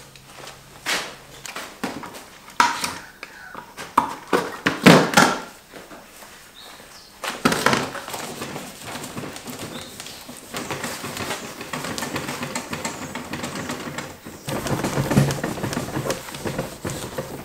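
Hands working a sideskirt set in fibreglass on a workbench: irregular taps and knocks for the first several seconds, then steady rubbing and scraping along the part.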